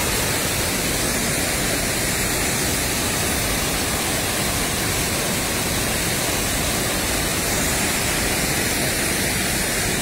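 Muddy floodwater from a stream in spate spilling over a low concrete weir, a steady, even rush of falling and churning water.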